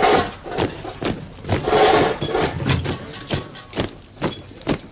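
Boots of a marching column striking pavement, about two steps a second, with a louder burst about two seconds in.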